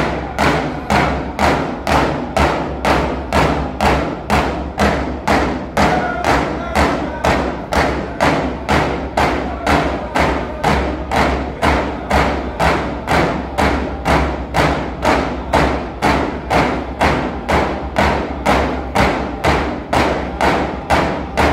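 Yup'ik frame drums (cauyaq) beaten together by a row of drummers, giving a steady, even beat of a little over two strikes a second to accompany a dance.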